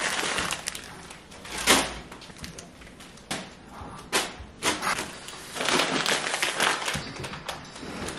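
Plastic grocery packaging rustling and crinkling as bagged bread and produce are handled, with a few short knocks of items set down on the counter.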